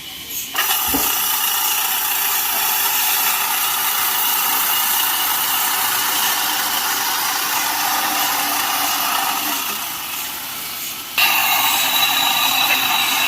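Sawmill saw cutting through wood: a loud, steady, hissing whine that starts about half a second in. It eases slightly near the end, then jumps louder with a higher, clearer whine about eleven seconds in.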